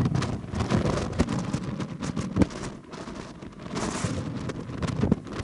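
Wind buffeting the microphone on the deck of a moving sightseeing ship, as an uneven rumbling roar with frequent gusty pops.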